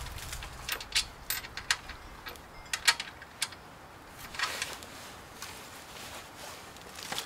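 Scattered light clicks and clinks of small metal parts being handled and fitted onto the wheel axle of an off-road floor jack: a wheel, washer and bolt.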